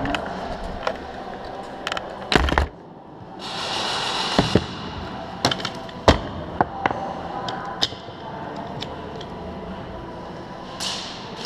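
Scattered sharp cracks and clicks of airsoft guns firing and BBs striking, unevenly spaced, the loudest about two and a half and six seconds in. About three and a half seconds in there is a hiss lasting about a second.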